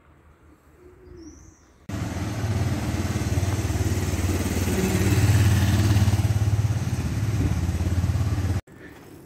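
A motor vehicle's engine running close by, loud and steady, cutting in abruptly about two seconds in and cutting off suddenly near the end. Before it, a bird coos faintly and a small bird chirps once.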